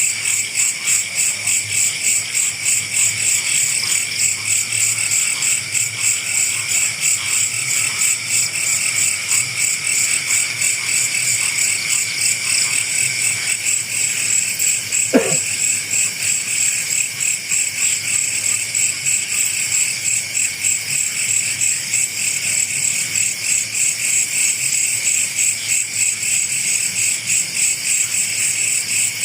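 A steady chorus of night insects, crickets trilling in a fast, even pulse. A single short click or knock sounds once about halfway through.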